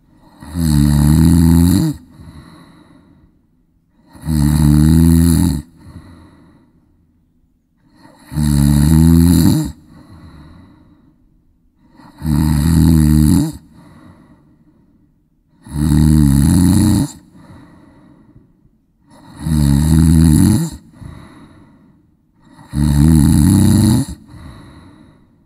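A person snoring in a steady rhythm: a loud, low snore about every four seconds, seven in all, each followed by a fainter breath.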